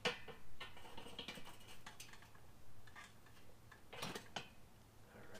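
Scattered light metal clicks and clinks as a rotisserie spit loaded with a whole chicken is set into a Weber kettle's rotisserie ring, the clearest right at the start and about four seconds in.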